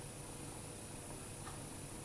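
Steady low hiss of room tone, with a faint click about one and a half seconds in.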